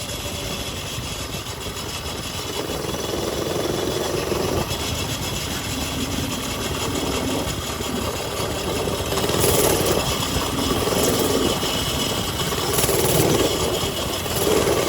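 Mini bike engines running, with louder spells about two thirds of the way through and near the end.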